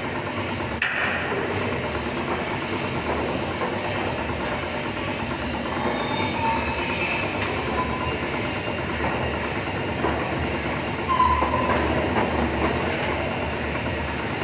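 Steady mechanical rumble of machinery running, with a few faint clicks and brief tones over it.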